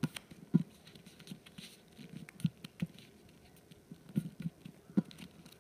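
Fingers folding and creasing a small paper plane against a glass tabletop: scattered soft taps and faint paper rustles at irregular times.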